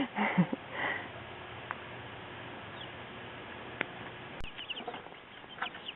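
Young chicks peeping: short, high cheeps that cluster in the last second and a half.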